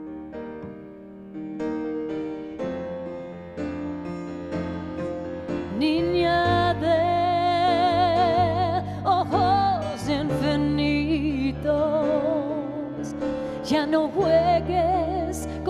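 Live band music: piano alone at first, then about six seconds in a bass line and a sustained melody with a wide vibrato come in and the music gets louder.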